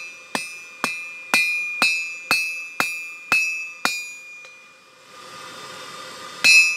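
Hand hammer blows on red-hot leaf-spring steel on a 180-pound anvil, about two a second, each followed by a bright metallic ring from the anvil. The hammering stops about four seconds in, a soft rushing noise fills a short pause, and one hard blow lands near the end.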